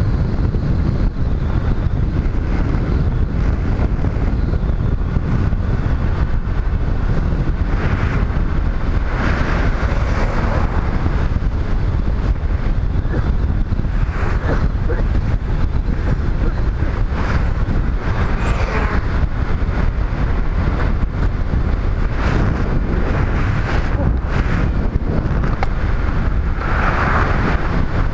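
Steady wind rush over the microphone of a motorcycle riding at road speed, with the ride's low rumble underneath. Several times, other vehicles pass close by and their noise swells.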